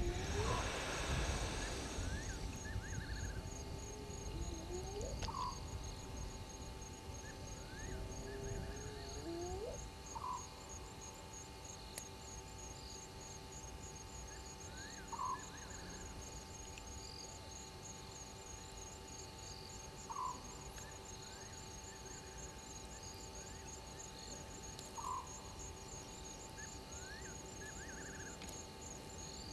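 Night-time bush sounds: a high insect trill pulsing rapidly and steadily, with a short call repeated about every five seconds and a rising chirp between each pair. A burst of rustling noise comes in the first couple of seconds.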